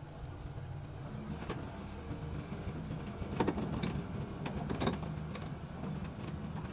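Sany SY215C excavator's diesel engine running steadily, with a few sharp knocks in the middle.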